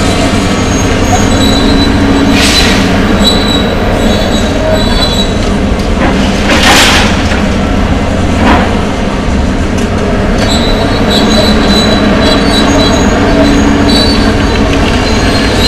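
Two hydraulic excavators, one a John Deere, running under load as they tear apart a steel-framed building, with short high metal squeals and screeches of steel being bent and scraped. Three crashes of falling debris come through, the loudest about seven seconds in.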